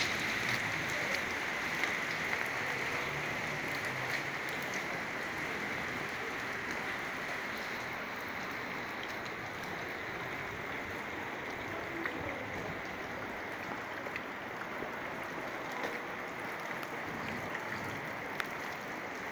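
Heavy rain falling steadily onto a flooded street and puddles: an even hiss with scattered small ticks of drops.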